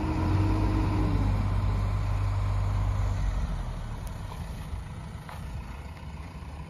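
Diesel engines of a farm tractor and a backhoe loader running under load. A steady higher engine note drops away about a second in, and the deep engine drone eases off after about three seconds.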